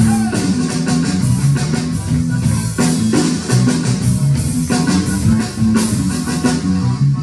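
Live instrumental passage of a Ukrainian popular song: a button accordion playing the tune over a backing band with a steady drum beat.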